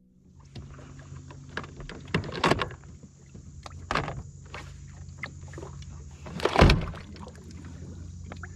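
Knocks and clunks of gear being handled on an aluminium jon boat, with two heavy thunks about two and a half and six and a half seconds in, over a steady low motor hum from the stopped boat's motors.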